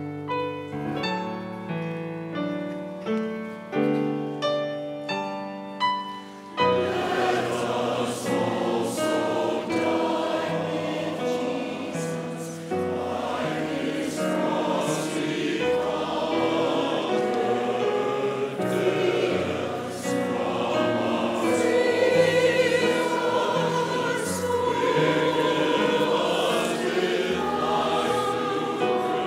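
Church choir singing with grand piano accompaniment. The piano plays alone for about the first six seconds, then the full choir comes in.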